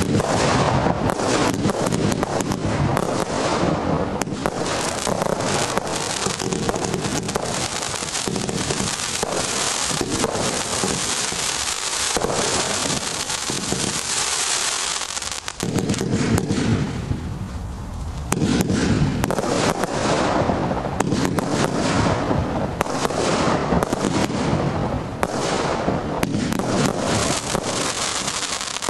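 An 88-shot single-ignition firework display cake firing continuously: a rapid run of launch shots and aerial bursts mixed with dense crackling from its crackle-effect stars.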